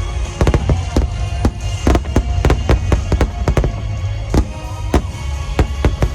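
Aerial fireworks bursting in quick succession, several sharp bangs a second over a steady low rumble, with the display's music playing underneath.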